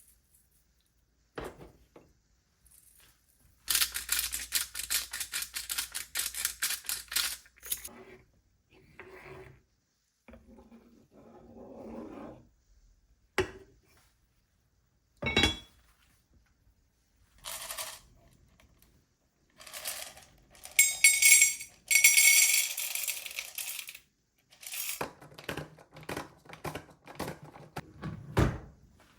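Kitchen work sounds of food preparation: a quick run of rapid strokes for a few seconds, then scattered knocks and rustles, and a louder clattering stretch near the end.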